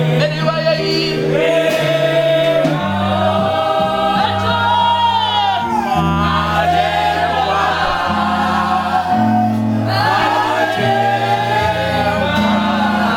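Gospel worship music: a group of voices singing over a band with a bass line that steps between held notes every second or two.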